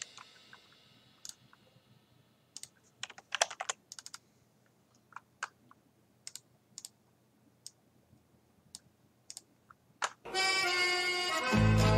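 Scattered clicks of a computer keyboard and mouse. A music track fades out in the first second, and background music comes in abruptly just after ten seconds.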